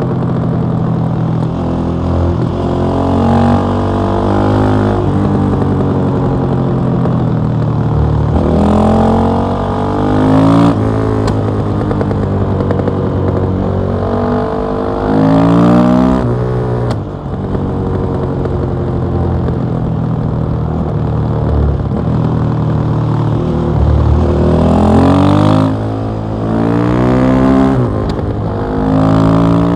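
KTM 660 SMC single-cylinder supermoto engine through an Akrapovic exhaust, ridden hard: the revs climb sharply about five times and fall back between pulls as the throttle closes or it shifts.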